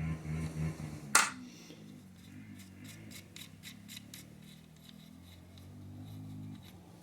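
Tools and small metal alternator parts being handled on the bench. One sharp click comes about a second in, then a run of light, quick ticks, about four or five a second.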